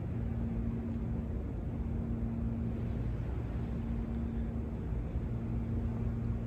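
Steady low room hum with a faint held tone underneath, unchanging throughout; no knocks or other events.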